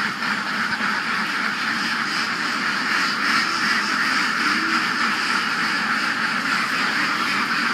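A large flock of laying ducks, some 1,400 birds, quacking together in a dense, steady mass of calls with no single bird standing out.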